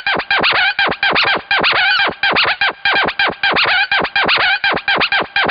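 Intro music with a DJ-style scratched, chopped sample stuttering in a fast, even rhythm, its pitch bending downward on each cut.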